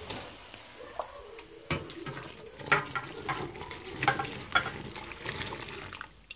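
Boiled onion water poured through a perforated stainless-steel colander, splashing and trickling, with several sharp metallic clinks.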